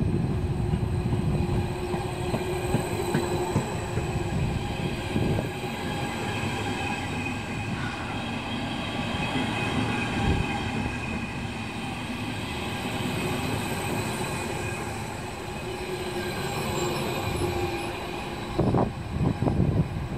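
Stadler KISS double-deck electric multiple unit (DB Intercity 2) pulling out and running close past, its electric traction drive whining in steady tones over the rumble of wheels on the rails. Near the end, sharp knocks take over.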